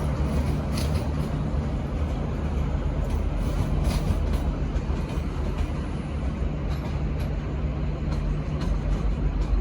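Diesel train engines running with a steady low rumble, with a few light clicks scattered through.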